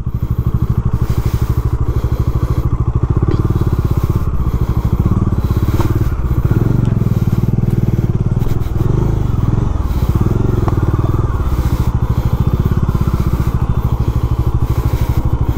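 Bajaj Dominar 400's single-cylinder engine running with a steady, even beat as the motorcycle crawls over rough dirt and rock.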